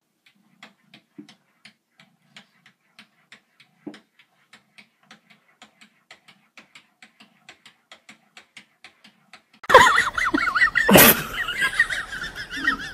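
A cat's paws tapping over and over on a mirror: faint, quick, even taps, about three a second. Near the end they give way to a loud wavering high-pitched cry and a sharp bang.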